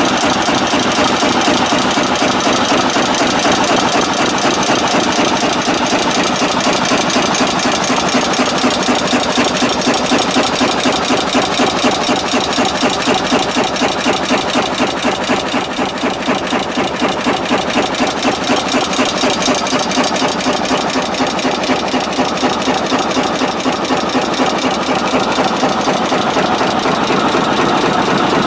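Double-blow cold heading machine for bolts, pins and rivets running, with a fast, even clatter of strokes that holds steady.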